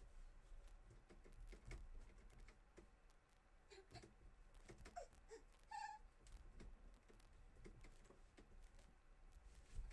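Near silence: faint room tone with soft knocks and creaks as a person climbs and hangs on a dance pole and aerial hammock, and a short high squeak just before six seconds in.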